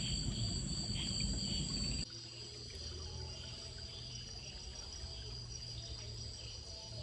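Steady high-pitched chirring of night insects. A low rumble of handling noise on the phone's microphone lasts the first two seconds and stops abruptly.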